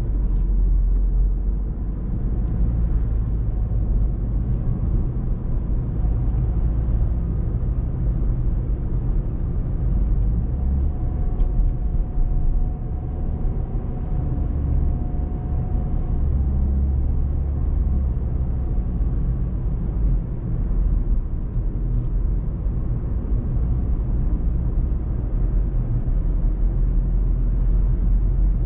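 A car driving on a country road: a steady, low rumble of engine and tyres on the road. A faint whine comes in about eleven seconds in and fades out about five seconds later, with a few light clicks here and there.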